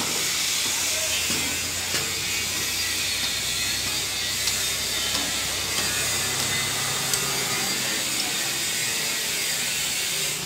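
Steady hiss over a low hum, with a few sharp metallic clicks from an open-end spanner being worked on a bolt of a combine harvester.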